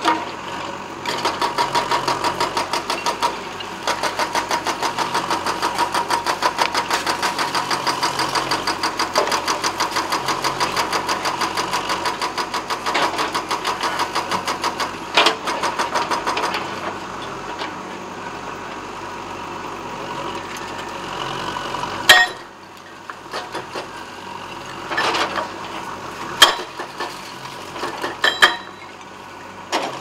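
JCB backhoe loader's diesel engine working hard with a fast pulsing beat, easing off about halfway through. In the second half come several sharp knocks and clanks as the bucket strikes demolition rubble.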